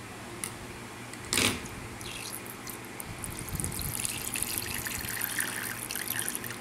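Aloe vera drink trickling from a small cut in a plastic bag into a ceramic mug, with the bag crinkling in the hands; the trickle starts about three seconds in. A short sharp noise comes about a second and a half in.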